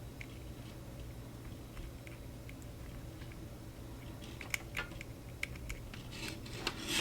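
Faint, scattered small clicks and crackles from close handling of a wire and a cordless soldering iron at a bowl of rosin, growing busier in the last couple of seconds, over a low steady hum.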